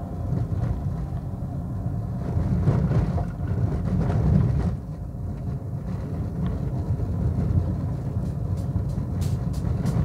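Car driving on a dirt road, heard from inside the cabin: a steady low rumble of engine and tyres on the unpaved surface, swelling and easing over the road's bumps.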